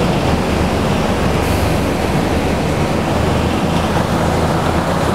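City bus driving through deep floodwater, heard from inside the bus: a steady engine drone under the continuous rush of water churned up by the wheels.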